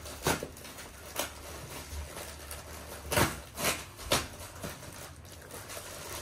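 A cardboard box being torn open by hand: a few short rips and crackles of cardboard and packing tape, the loudest cluster about three to four seconds in.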